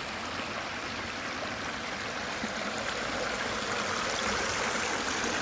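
Water from a small pondless waterfall splashing and trickling over rocks, a steady noise that grows slightly louder toward the end.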